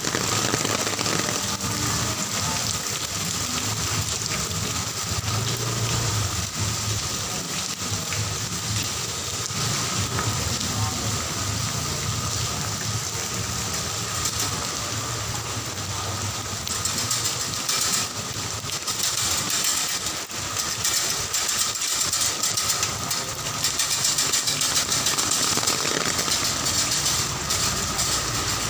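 Steady heavy rain falling, mixed with the low hum of a vehicle engine running nearby. The hiss of the rain gets louder a little past halfway through.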